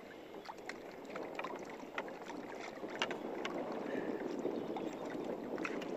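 Water lapping and sloshing against a small fishing boat's hull, building up in the second half, with scattered sharp clicks and knocks from handling in the boat.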